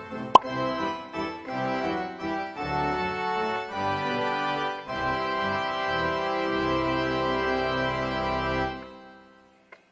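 Background music of sustained, organ-like keyboard chords that fades out near the end. A single sharp click sounds about half a second in.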